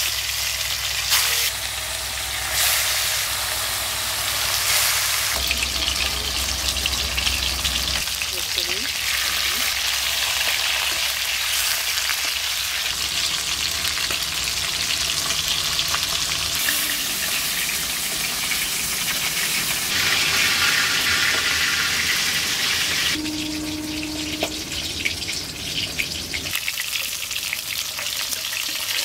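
Pieces of rohu fish shallow-frying in hot mustard oil, a steady loud sizzle that eases a little over the last few seconds.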